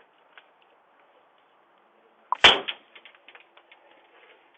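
A single sudden sharp bang about two and a half seconds in, amid faint scattered clicks and ticks.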